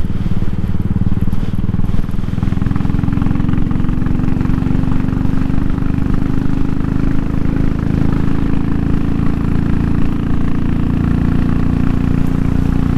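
Royal Enfield Classic 500's single-cylinder engine pulling steadily in fifth gear, through a free-flowing aftermarket AEW Gold Star exhaust.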